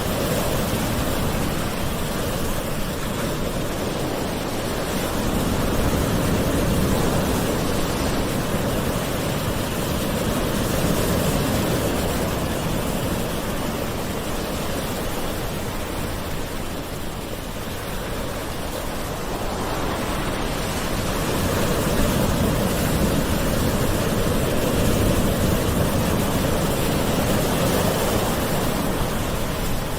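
Calm ocean surf: a steady wash of waves, swelling and easing slowly every several seconds.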